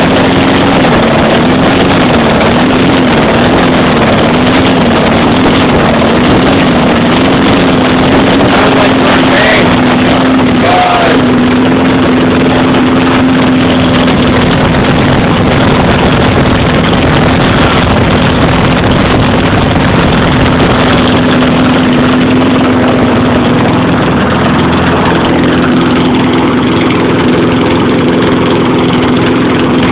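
Small 4-horsepower lawn mower engine running loud and continuously; for the first several seconds its speed surges up and down about once a second, then settles to a steady note. The engine needs a tune-up.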